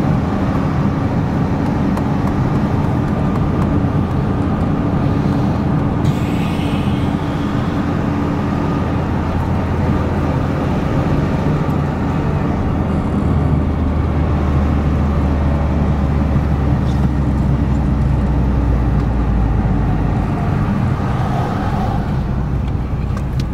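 Car driving, heard from inside the cabin: a steady engine hum with road and tyre noise. A deeper low rumble swells for several seconds past the middle, then eases.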